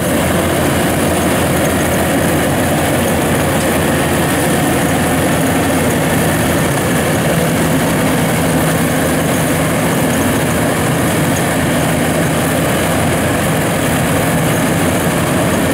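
Yanmar AW1000V rice combine harvester running steadily as it cuts and threshes rice, a loud, even machine drone with a low hum.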